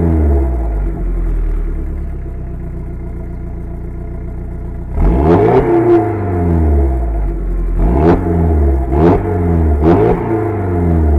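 Audi S3 8L's turbocharged 1.8-litre 20-valve four-cylinder idling through a decatted exhaust, then revved in four quick throttle blips. Sharp exhaust pops and crackles sound as each blip drops back.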